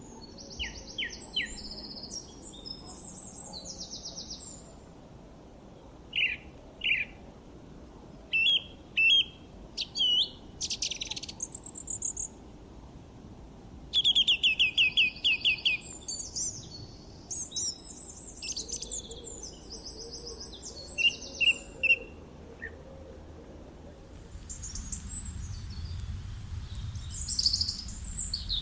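Several birds chirping and singing in short phrases, trills and quick runs of repeated notes. About 24 s in, a low steady rumble comes up under fainter, higher calls.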